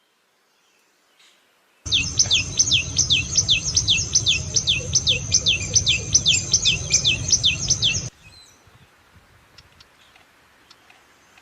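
A songbird singing a fast trill of repeated down-slurred whistled notes, about four a second, for about six seconds, with a low rumble underneath; it starts and cuts off abruptly.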